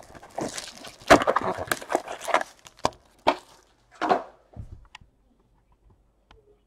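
2017 Panini Elite Extra Edition Baseball foil packs being set down and stacked on a table mat: a string of light knocks and clicks with foil crinkling, dying away about five seconds in.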